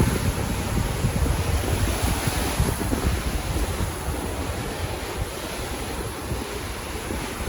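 Sea surf washing steadily, with wind buffeting the phone's microphone in gusts.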